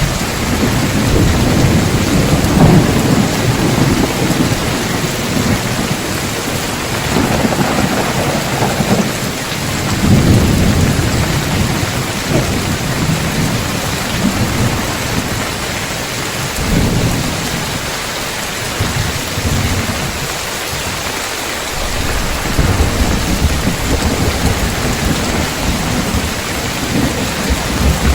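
Heavy rain pouring steadily on a tiled roof, with thunder rumbling low several times as it swells and fades, strongest near the start, around ten seconds in, and again near the end.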